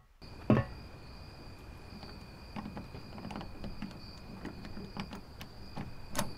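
A door lock being picked: a knock, then a few seconds of small metallic clicks and light rattles, ending in a sharper click as the lock gives. Steady cricket chirping runs underneath.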